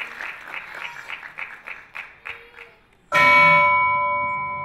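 Audience applause dying away to a few last scattered claps, then about three seconds in a single loud bell-like chime strikes and rings on, slowly fading.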